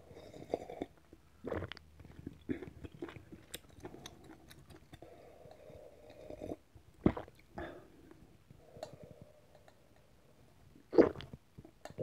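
A person sipping and swallowing ramen broth from a glass: intermittent wet slurps and gulps, with a louder one about seven seconds in and another near the end.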